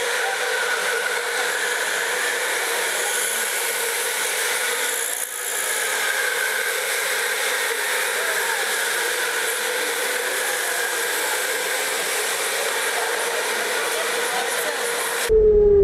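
Electric go-karts running on an indoor track: a steady high-pitched motor whine over a hiss, with a brief dip about five seconds in.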